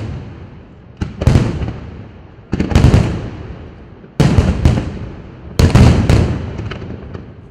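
Aerial firework shells bursting in quick succession, about one every second or so and some in close pairs. Each loud bang is followed by a long rolling echo that fades away.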